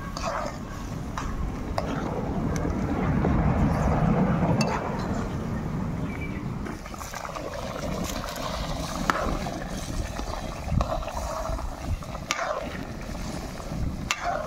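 Wind rumbling on the microphone over an open wood fire, swelling a few seconds in, with scattered sharp crackles and clicks.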